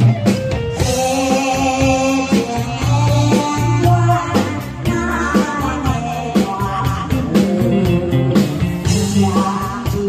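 A woman singing a song into a microphone, amplified through a PA, over band accompaniment with electric guitar.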